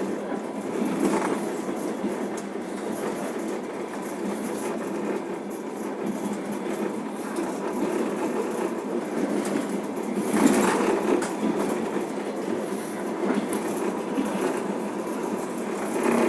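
Passenger train running, heard from inside the carriage: a steady rumble of wheels on the rails, with louder stretches about a second in, around ten seconds in, and near the end.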